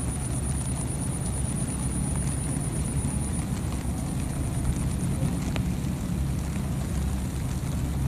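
A steady low engine drone, like a distant motor. A thin high whine above it fades out about five seconds in.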